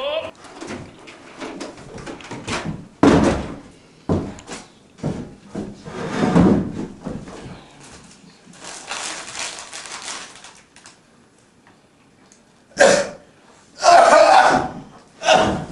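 A few separate knocks and bumps, as of a chair and objects set on a wooden table, with a stretch of crinkling from a plastic snack bag about two-thirds of the way through.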